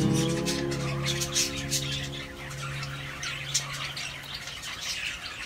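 Parrot chicks chirping and squawking in quick, scratchy calls, with a sustained background music chord that fades out about halfway through.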